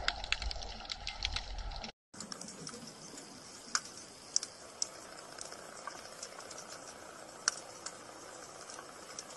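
Underwater recording ambience: a steady hiss with scattered sharp clicks. A short stretch of denser clicking and low rumble is followed by a brief dropout about two seconds in, after which only a few isolated clicks come through.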